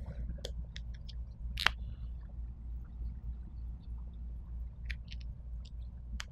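Dry-erase markers being handled and drawn on a whiteboard: scattered faint clicks, one sharper click a little over a second and a half in, and a brief high squeak of the marker tip on the board, over a low steady hum.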